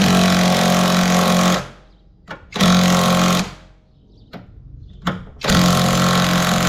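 A power impact wrench hammers on the top strut-mount fastener in three bursts: a long one at the start, a short one about two and a half seconds in, and another starting near the end.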